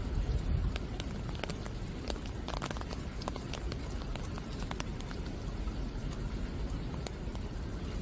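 Steady rain falling on garden plants, with many separate drops ticking on the leaves over a low rumble.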